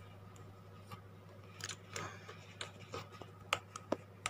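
Small clicks and soft crinkles of plastic kit parts and their plastic bags being handled. They are scattered and irregular, starting about a second and a half in, with a few sharper ticks near the end.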